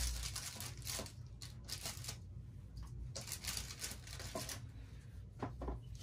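Rummaging: irregular bursts of rustling and crinkling, like packaging or a bag being handled and searched through to pull out a bottle of cell activator.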